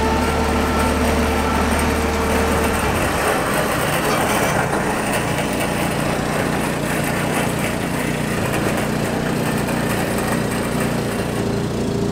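Clark forklift's engine running steadily while it moves a heavy load, with a steady whine that stops about three seconds in, after which the engine note changes and carries on.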